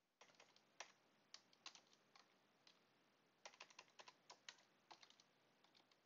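Faint computer keyboard typing: scattered key clicks in short runs, with a pause of about a second in the middle.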